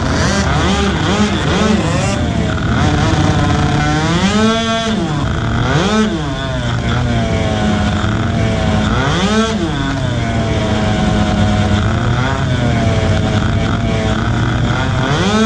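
Motorcycle engine revving up and dropping back several times while riding, with the loudest rev sweeps about four seconds in, at six seconds, near the middle and at the very end. Steady wind and road rush runs under it.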